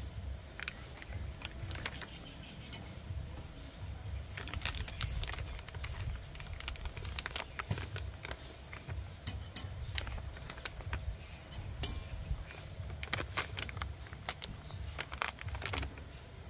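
Plastic bag crinkling in a hand, with irregular sharp crackles, over a steady low rumble.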